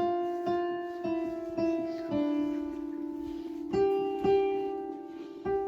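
Piano played one note at a time in a slow, simple melody: about eight struck notes, each fading away, with a longer held note a little past the middle.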